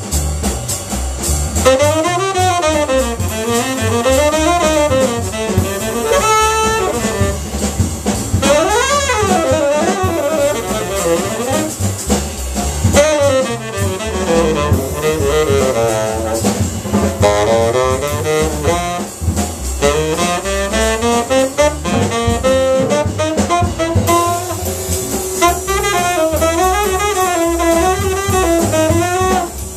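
Jazz trio playing: a tenor saxophone plays winding melodic lines that rise and fall throughout, over a plucked upright double bass and a drum kit with cymbals.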